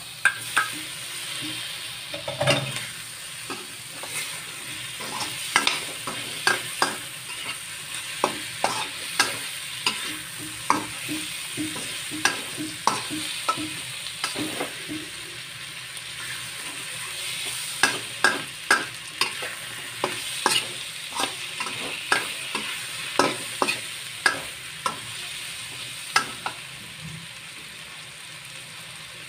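Mushrooms and cherry tomatoes sizzling in a stainless steel wok while a metal spatula stirs them, with many sharp clicks and scrapes of metal spatula on the wok at an irregular pace, fewer near the end.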